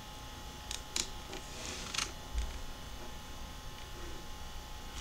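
A few faint clicks and one soft low thump over a steady background hum.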